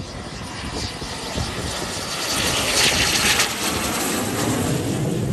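The single Adour turbofan of a Red Arrows BAE Hawk T1 jet on approach with its landing gear down. Its jet hiss grows louder to a peak about three seconds in as the aircraft passes close.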